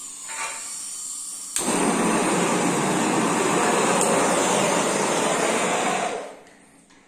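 Handheld butane-cartridge blowtorch: a soft gas hiss, then a sharp click about a second and a half in as the flame lights, followed by the steady rushing noise of the burning torch flame for about four and a half seconds before it is shut off and fades away.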